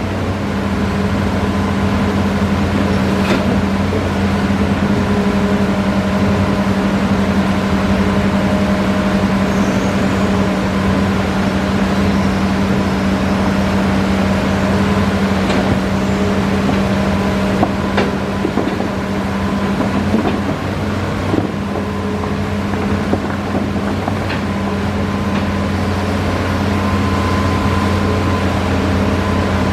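Hitachi Zaxis excavator's diesel engine running at a steady speed, with a few sharp knocks scattered through.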